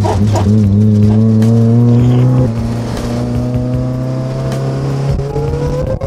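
Mazda Miata's four-cylinder engine pulling under acceleration, heard from inside the open cockpit: the engine note climbs steadily, drops suddenly about two and a half seconds in, and climbs again near the end.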